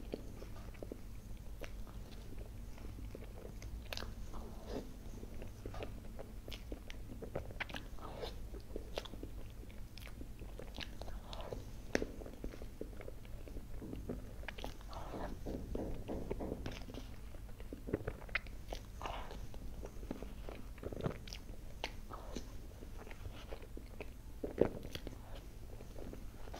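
Close-miked eating sounds of cream cake: soft chewing and wet mouth clicks, with a metal fork now and then cutting into the sponge and cream.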